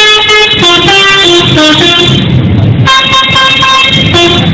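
Telolet horn, the multi-tone musical horn of an Indonesian bus, playing a quick tune of short held notes that step up and down in pitch, with a brief pause a little over two seconds in.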